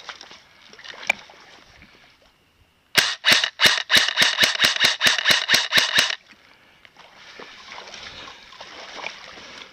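Airsoft gun firing a rapid string of sharp shots, about six a second for about three seconds, starting about three seconds in. Fainter rustling before and after.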